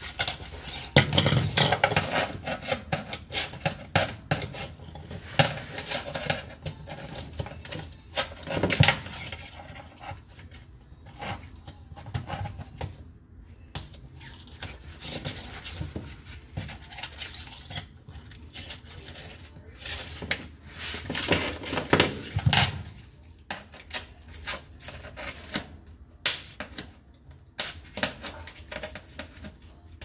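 Irregular metallic clinks, knocks and rattles of hand tools and metal parts being handled during a washing-machine repair, louder in clusters about a second in, near nine seconds and around twenty-two seconds.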